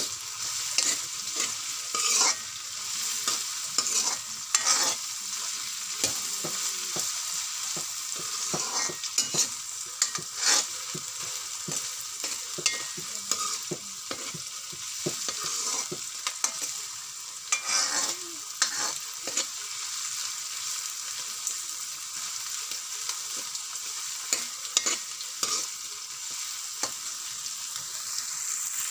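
Diced carrots and peas frying in oil in a metal wok, a steady sizzle, while a metal spoon stirs them, scraping and knocking against the wok at irregular moments.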